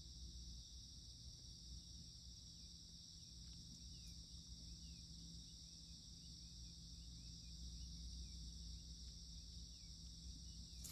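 Faint, steady, high-pitched chorus of insects, with quieter short chirps repeating a couple of times a second from a few seconds in.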